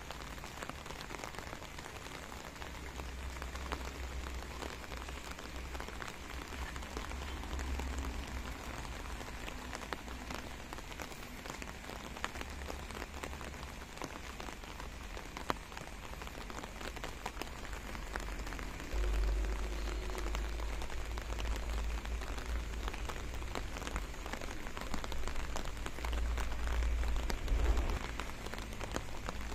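Light drizzle: an even patter of rain on wet pavement and vegetation, dotted with many small, sharper drips. A low rumble comes and goes, strongest in the second half.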